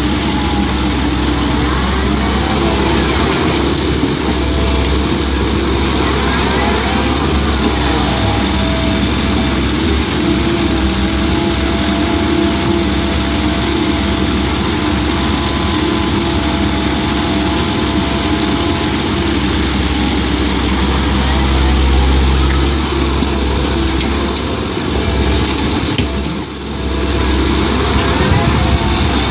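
Komatsu PC130-8 hydraulic excavator's diesel engine running steadily under working load while it digs, with a brief dip in level near the end.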